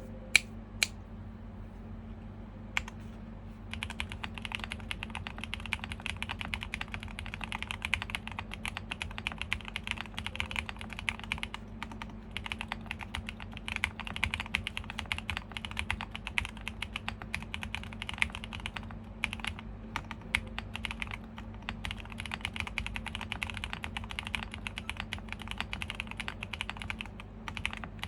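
Typing on a QK65 mechanical keyboard with a POM plate, stock Epsilon switches and GMK keycaps. A few single key presses come first, then fast, continuous keystrokes from about four seconds in, with a few short pauses.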